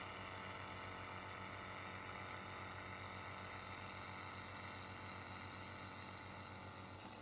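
Handheld fiber laser welder welding mild steel: a steady hiss with a low hum underneath, cutting off suddenly near the end.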